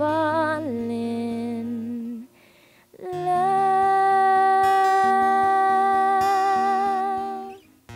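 Female singer's wordless closing vocal over acoustic guitar, ending the song: a wavering note that steps down and is held, a short pause, then one long held note with a light vibrato that fades out near the end.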